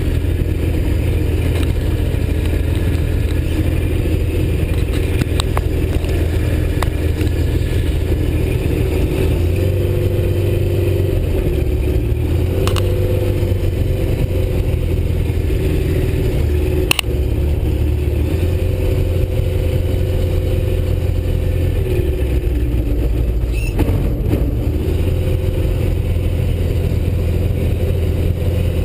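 Rotax 912 flat-four aircraft engine and propeller running steadily at low power while taxiing, heard from inside the open cockpit. The pitch shifts slightly a few times, and there is a single sharp click about halfway through.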